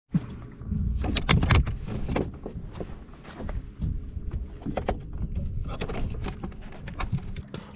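Irregular knocks and clunks on a fishing boat over a low rumble, loudest and busiest between about one and two seconds in.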